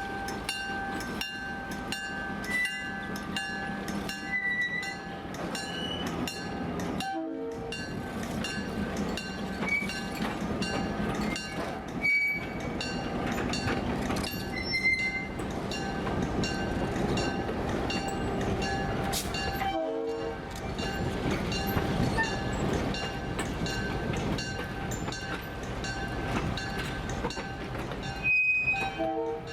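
EMD GP7 diesel locomotive with a 567B engine running as it hauls a train, with rail noise from the moving cars. The sound drops out abruptly several times.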